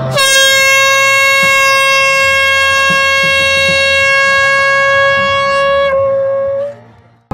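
Red plastic fan horn blown into a hand-held megaphone and amplified by it: one long, loud, steady blast on a single note. The blast drops off about six seconds in, and a weaker tail fades out before the end.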